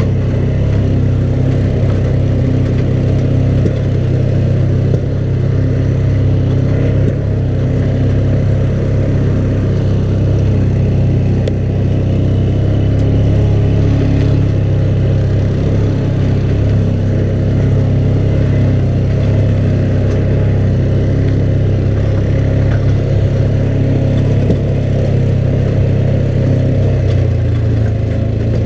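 ATV engine running steadily as the machine rides along at an even pace.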